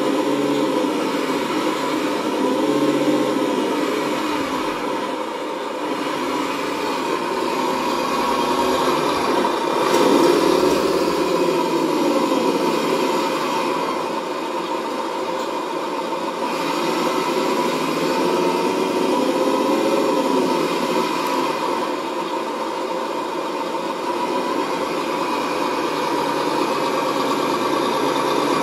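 Tamiya Actros radio-controlled truck running, a steady engine-like hum whose pitch rises and falls several times as the throttle is worked.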